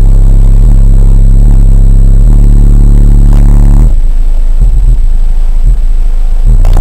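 Two Power Acoustik 15-inch car subwoofers in a custom ported box tuned to about 30 Hz play very loud, deep bass notes that change pitch every second or so. About four seconds in, the steady notes break up into irregular low thumps and rattles, and the steady bass comes back near the end.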